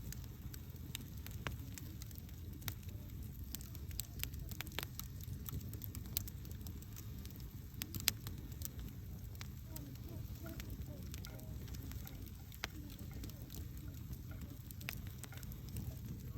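Campfire burning: a steady low rumble of flames with irregular crackles and pops from the burning wood. One pop about eight seconds in stands out above the rest.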